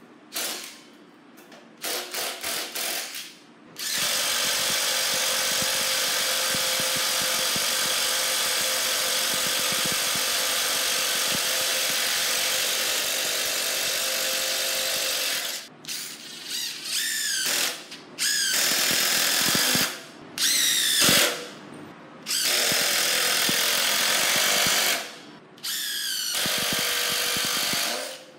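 DeWalt DCF809 brushless impact driver driving screws into a thick wooden post. A few short trigger pulses come first, then one long continuous hammering run of about 11 seconds, then several shorter runs, some with the motor whining up in pitch.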